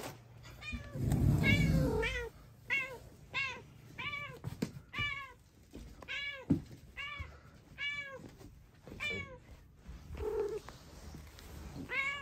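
A white cat meowing loudly over and over: short rising-and-falling meows, about two a second, its deafening greeting call. A dull low rumble sounds about a second in.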